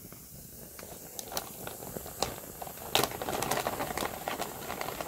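Campfire crackling with scattered sharp pops. About three seconds in, a marshmallow catches fire and adds a louder hiss and crackle.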